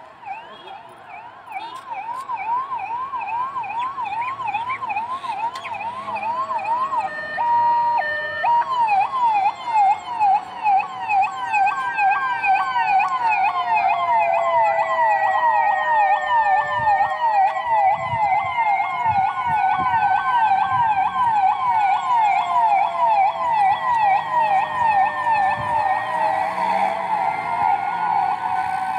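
Electronic vehicle sirens: one gives a fast repeating yelp, about two to three sweeps a second, and about eight seconds in more sirens join with a slow rising-and-falling wail, getting louder and then holding.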